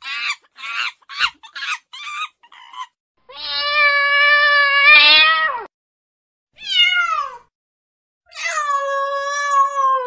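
Domestic cat meowing three times: a long drawn-out meow, a short falling one, and another long meow that drops in pitch at its end. Before it, a rapid series of about seven short, high calls.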